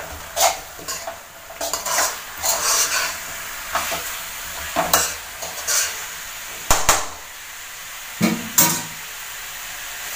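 Metal spatula stirring and scraping chicken pieces and spice masala around a metal kadai, in irregular strokes over a steady sizzle of frying. There is one sharp knock about two-thirds through, and the stirring stops near the end, leaving the sizzle.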